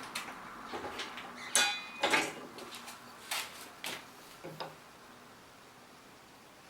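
About half a dozen clatters and knocks of hard objects being handled and set down, the loudest pair about one and a half to two seconds in, one with a short metallic ring; then quiet room tone.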